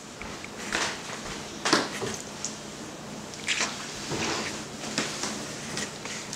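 Toddler drinking from a sippy cup: several short, soft sucking and slurping mouth noises, irregularly spaced, over a faint steady hum.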